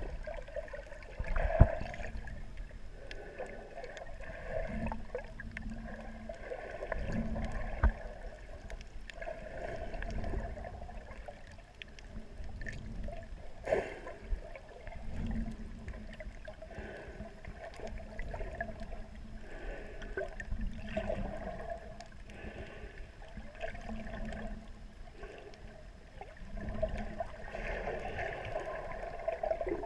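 Muffled water heard underwater: gurgling and sloshing, with a few sharp knocks. It grows louder near the end as a swimmer kicks overhead, churning up bubbles.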